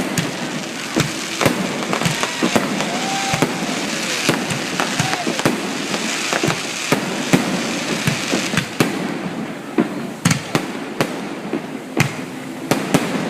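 Fireworks display: a rapid, irregular barrage of bangs, several a second, over a continuous hissing crackle.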